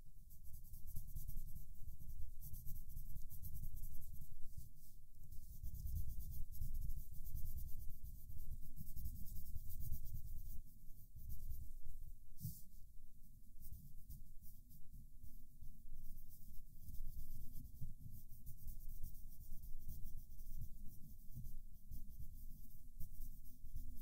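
Coloured pencil scratching on paper in quick, continuous back-and-forth shading strokes, picked up close to the microphone.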